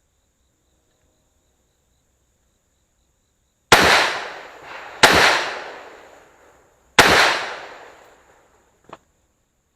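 Three rifle shots from a Bushmaster QRC AR-15 carbine in .223/5.56, the second about a second and a half after the first and the third two seconds later, each followed by a long echoing tail. A faint click comes near the end.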